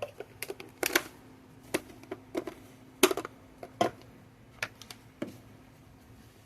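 Irregular clicks and light knocks of kitchen utensils and containers being handled during food preparation, about a dozen over several seconds.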